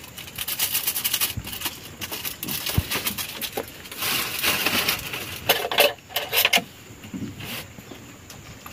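Kitchen handling sounds: rapid crackling and light clattering of packaging and containers on the table, then metal cutlery clinking as a spoon is pulled from a hanging aluminium utensil holder, with the sharpest clinks past the middle.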